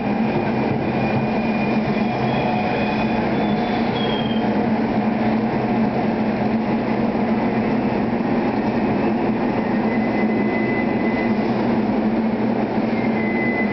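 NJ Transit Arrow III electric multiple-unit train rolling slowly along the platform as it pulls in, with a steady hum. Brief faint high squeals come and go a few times.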